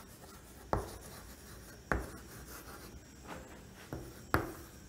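Chalk writing on a chalkboard: faint scratching with a few sharp taps as the chalk strikes the board, the loudest near the end.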